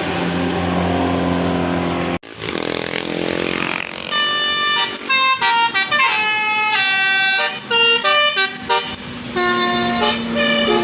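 A tour bus's 'telolet basuri' musical horn playing a tune of short notes that step up and down in pitch, over the steady running of the bus. The tune comes in about four seconds in, after a brief sharp dropout in the sound, and a second short phrase follows near the end.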